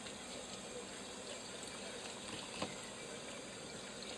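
Steady hiss of water running, with one sharp tap about two and a half seconds in.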